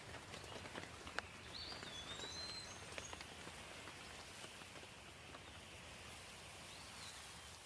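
Faint light rain, with scattered drops ticking, and a bird giving a short whistled call twice: about a second and a half in and again near the end.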